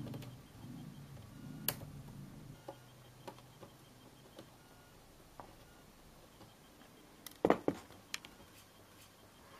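Faint handling sounds from fitting plastic wire-harness connectors onto a projector's main circuit board: light scattered clicks and taps, with a quick cluster of sharper clicks about seven and a half seconds in.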